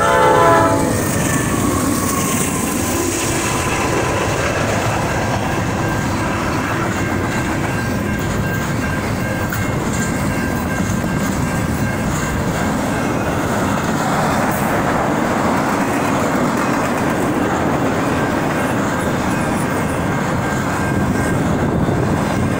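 Freight train locomotive's horn ending about a second in, then the train's cars rolling past a grade crossing with a steady rumble and clickety-clack of wheels on rail joints.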